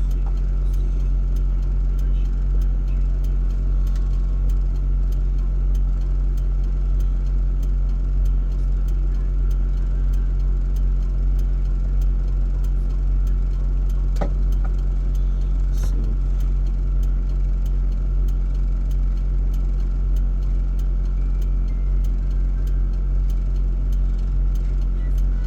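A steady low hum, like an idling engine or mains hum, with faint ticking throughout and two light knocks around the middle.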